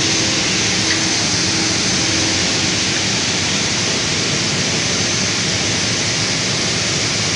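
Steady, even hiss of running workshop machinery, strongest in the upper range, with a faint hum beneath it.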